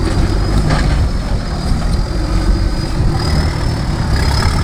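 Extreme-trial 4x4 prototype's engine running with a steady low rumble, with a thin high whine over it.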